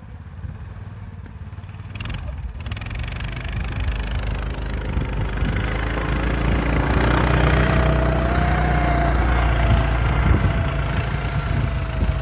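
A vehicle engine running and growing steadily louder, with a thin whine wavering in pitch through the middle stretch.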